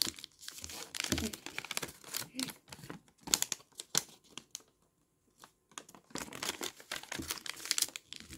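Colored origami paper being folded and creased by hand: crinkling and rustling with sharp crackles as the folds are pressed flat, stopping for about a second midway.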